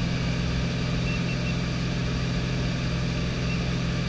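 Steady drone of a jump plane's engine and propeller, heard inside the aircraft cabin.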